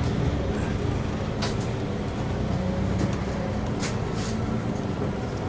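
Double-decker city bus's engine running, with road noise heard from the upper deck, and a few short clicks or rattles over the steady hum.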